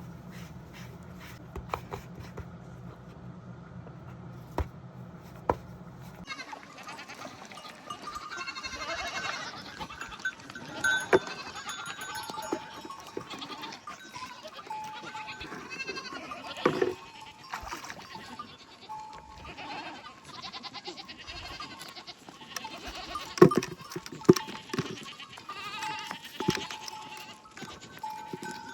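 A steady low hum for the first few seconds, then livestock bleating, many calls overlapping as from a flock, with a few sharp knocks among them.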